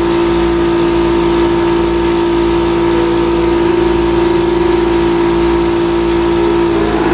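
Respiratory-therapy machine running with a loud, steady hum, its pitch wavering and shifting slightly near the end.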